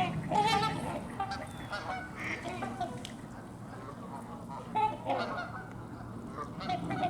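Large waterfowl honking: a bunch of calls in the first second, more around five seconds in and again near the end.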